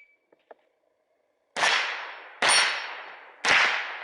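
Three .22LR shots from an AR-type rifle with a conversion kit, each with a clang and a long ring, as from a steel target being hit, at an even pace of about one a second.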